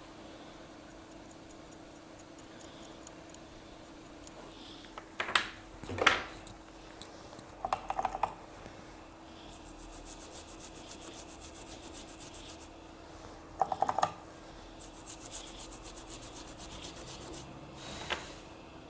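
Rapid, fine scraping strokes of a small hand tool on an iPhone 6 logic board, cleaning the NAND flash site. The strokes come in two runs of a few seconds each, after a few sharp taps. A steady hum runs underneath.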